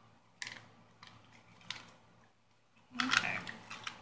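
A foil MRE drink-mix packet being tapped and shaken out over a ceramic mug, making light clicks and rustles, then a louder run of spoon clinks and scraping inside the mug about three seconds in.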